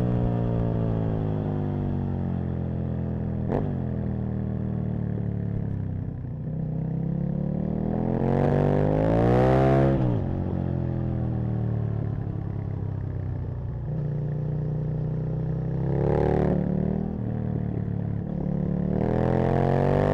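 Aprilia RSV Mille's V-twin engine under way: the revs fall off early on, climb hard to a peak about halfway, drop away again, then rise in two shorter pulls of throttle near the end. A single sharp click comes about three and a half seconds in.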